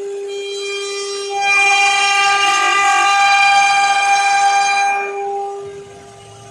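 CNC router spindle whining at a steady high pitch. About a second and a half in, the whine grows louder and shriller for some four seconds as the bit cuts into the wooden blank turning on the rotary axis, then eases back to the plain spindle whine.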